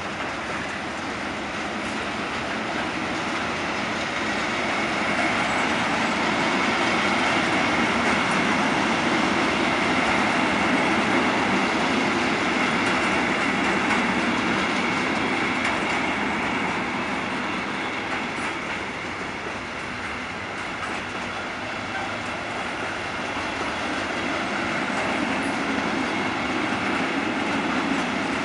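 Freight wagons of a long intermodal container train rolling past: a steady rumble and rattle of wheels on rail with a faint high tone running through it. The sound swells toward the middle, eases a little later on, then builds again near the end.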